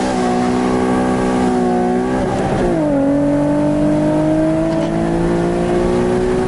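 Tuned Nissan 370Z's VQ V6 under full-throttle acceleration through a modified exhaust. The revs climb in one gear, fall sharply on an upshift about two and a half seconds in, then climb again in the next gear.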